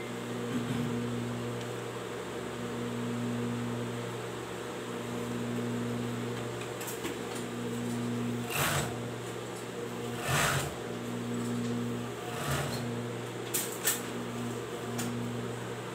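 Overlock sewing machine (serger) running with a steady motor hum as fabric is fed through it. In the second half there are several short scrapes and clicks of the cloth being handled.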